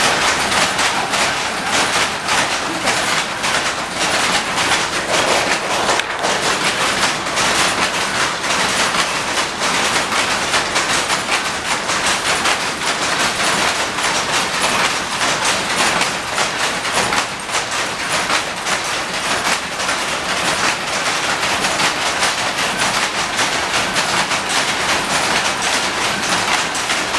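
Power looms weaving cloth, running together in a loud, continuous, rapid mechanical clatter.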